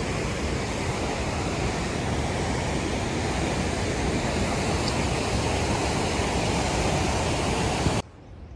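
Steady rushing of a fast white-water mountain river flowing over rocks close by. It cuts off abruptly near the end.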